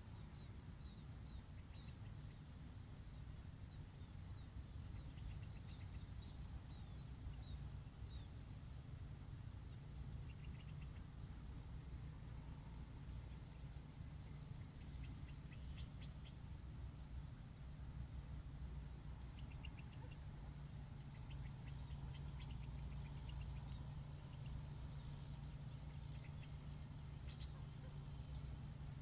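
Outdoor rural ambience: a steady high-pitched insect trill, with scattered short bird chirps and a steady low rumble underneath.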